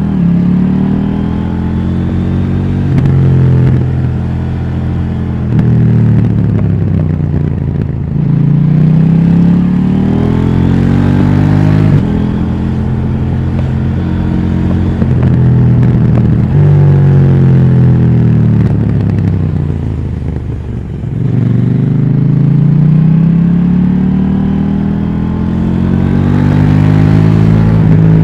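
KTM 790 Duke's parallel-twin engine through its stock exhaust, ridden hard: the pitch climbs again and again under throttle and drops back between pulls. About seventeen seconds in it winds down for several seconds, then pulls back up to the end.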